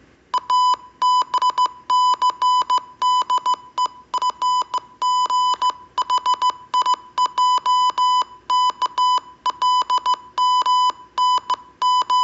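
Morse code played as a steady beep tone of about 1 kHz: short dots and longer dashes in quick succession, grouped into letters with brief gaps between them. It starts about half a second in and spells out a review of the letters learned so far.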